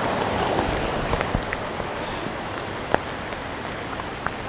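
Rain falling steadily in a rainstorm, with scattered single drops ticking sharply close to the microphone.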